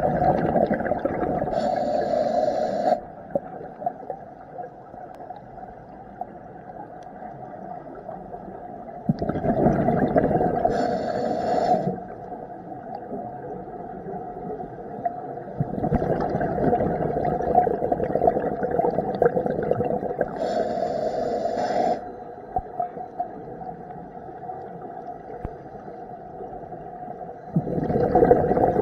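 A scuba diver breathing through a regulator underwater: four loud rushes of bubbling air, one roughly every eight to ten seconds and each lasting a few seconds, with a higher hiss near the end of the first three, and a quieter underwater rumble in between.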